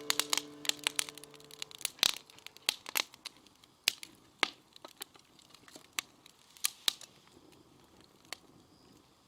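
Wood fire crackling in an old iron hibachi, with sharp, irregular pops that come less often toward the end.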